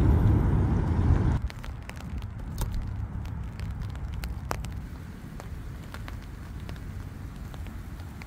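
A loud low rumble stops abruptly about a second and a half in. After it come light rain and scattered raindrops ticking close by, over a faint low background noise.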